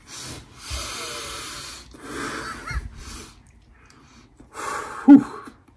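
A man breathing in deeply through the nose and out again, four long breaths, as he smells a fragrance he has just sprayed on. A short voiced hum about five seconds in is the loudest sound.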